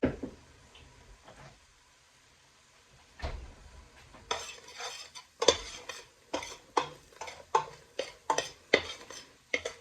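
A spoon stirring and scraping in a pot of onion and curry frying in oil, in quick repeated strokes, about two or three a second, starting about four seconds in. A single knock is heard at the very start.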